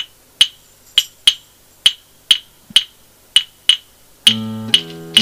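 Song intro: sharp snap-like clicks keep a beat about twice a second. About four seconds in, an instrument comes in with held, low-pitched notes that change about every half second.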